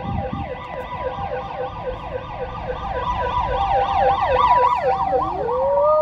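Ambulance siren on an emergency run: a rapid yelping sweep, about five a second, over the alternating two-note hi-lo tone, getting louder as the ambulance draws alongside. Near the end a single slower rising-and-falling wail comes in.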